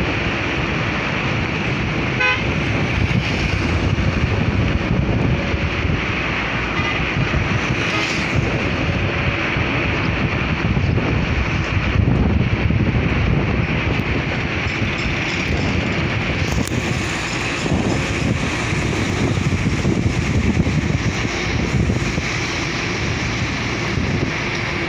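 Steady road and traffic noise from riding in a moving vehicle on a busy road. A vehicle horn toots briefly about two seconds in and again around seven seconds in.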